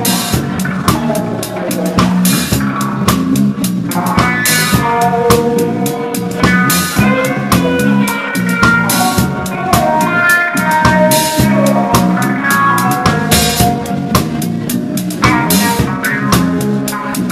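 Live reggae band playing, heard from the drummer's seat: drum kit and cymbals loud and close, with the rest of the band behind.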